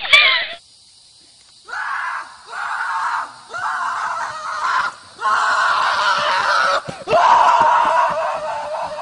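A person screaming over and over: six loud, harsh shrieks starting about two seconds in, with short breaks between them, the last two held longer.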